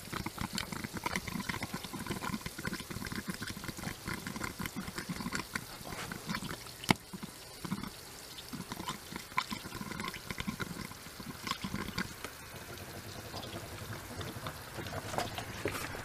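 Hydrogen gas bubbling through a water-filled plastic-bottle bubbler: an irregular gurgling with many small pops. The gas comes from aluminium cans reacting with sodium hydroxide and cola.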